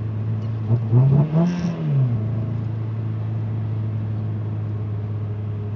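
Ford ZX2's four-cylinder engine running while driving, heard from inside the cabin, with one brief rev about a second in: the pitch rises and falls back over about a second and a half. The engine has a bad misfire.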